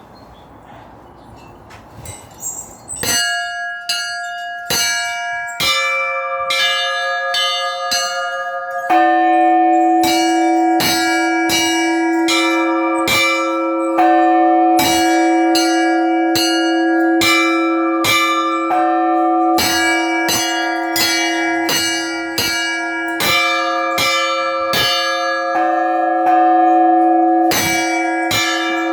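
Russian Orthodox church bells rung in an Easter peal. After about three seconds of background noise, small bells start striking in quick rhythmic patterns, more bells join about six seconds in, and from about nine seconds in a larger, deeper bell hums steadily beneath the rapid strikes.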